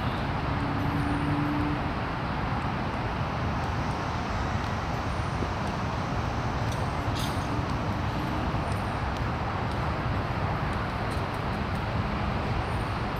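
Steady background rumble of city traffic.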